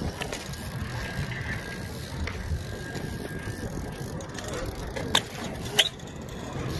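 BMX bike tyres rolling over a concrete skatepark surface with a steady rumble, and two sharp clacks just after five seconds in, about half a second apart.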